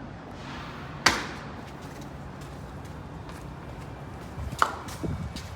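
Two sharp knocks about three and a half seconds apart, the first with a short ringing tail, followed by a few smaller clunks near the end.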